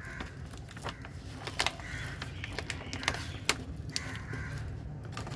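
Plastic pouch of dog chew sticks crinkling and rustling as a hand reaches in among the treats, with many sharp crackles of the packaging.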